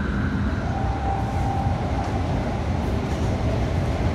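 CAF-built MTR Tung Chung Line train heard from inside a carriage, running with a steady low rumble. A faint high whine comes in about half a second in and fades after a second or so.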